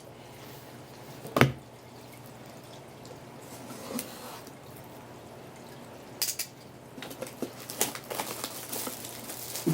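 A trading card box being opened by hand: a sharp click about a second and a half in, then scattered taps and rustles toward the end, over a low steady hum.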